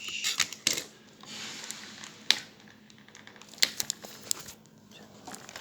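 Hands handling small craft materials: crinkling plastic and tape being pulled and torn, with scattered sharp clicks and a short rustle between them.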